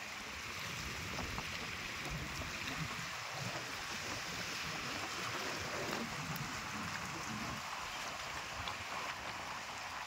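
Small choppy waves on a reservoir lapping and splashing against shoreline rocks in a steady wash of water noise, with wind buffeting the microphone in an unsteady low rumble.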